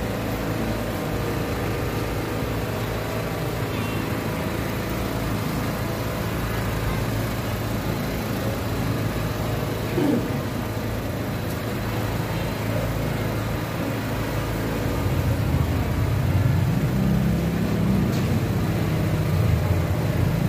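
Crowd murmuring over a steady low engine-like rumble, which grows louder in the last few seconds.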